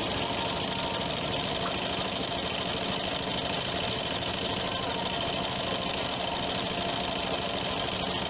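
Small single-cylinder diesel engine, a Dongfeng, running steadily and driving a three-head air compressor pump, with a fast even knock.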